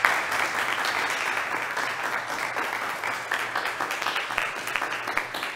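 Applause: many hands clapping steadily, tapering off near the end.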